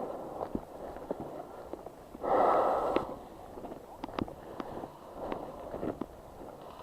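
A person breathing heavily close to the microphone, in a series of puffs with a loud exhale about two seconds in, with scattered sharp clicks.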